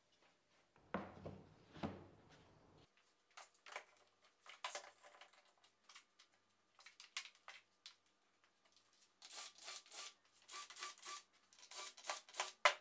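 Pine boards being handled and fitted on a workbench: scattered knocks and rubbing of wood on wood and board, with a busier run of short scraping strokes in the last few seconds.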